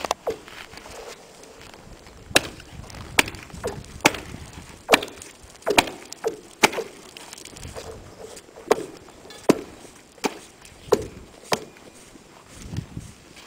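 A hatchet chopping into lake ice: a series of sharp strikes about one a second, with a pause of about two seconds midway, as a slot is hacked along a line in the ice.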